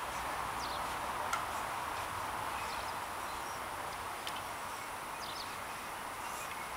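Steady outdoor background hiss with a few faint, short bird chirps and a couple of light taps.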